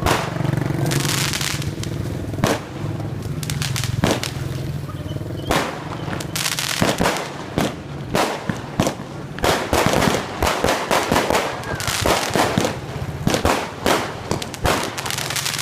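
Fireworks going off: a run of sharp bangs and crackles at irregular intervals, which thickens into rapid clusters of reports after about six seconds.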